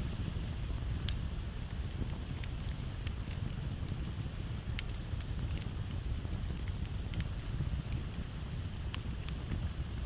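Campfire crackling, with sharp pops scattered irregularly over a steady low rumble of wind. A steady high cricket trill runs underneath.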